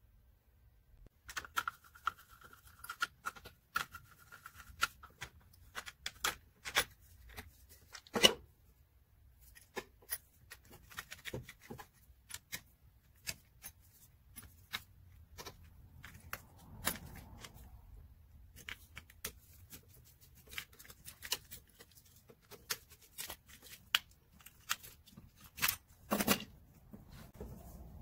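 Scattered clicks, taps and scrapes of hands taking apart a three-prong power cord plug, handling its plastic housing and the cord's wires, with a couple of louder knocks, one about eight seconds in and one near the end.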